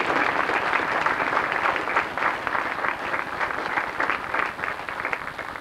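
Audience applauding. The clapping starts at once and slowly dies away toward the end.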